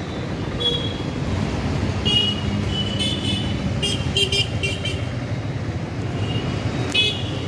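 Steady street-traffic rumble with vehicle horns beeping in short toots, about eight of them, most bunched a few seconds in and one more near the end.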